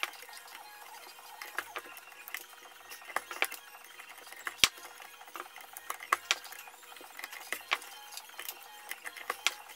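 Leather being hand saddle-stitched in a wooden stitching clamp: irregular light clicks and ticks of the steel needles and thread as they are passed through the stitch holes and pulled tight, with one sharper click a little under halfway through.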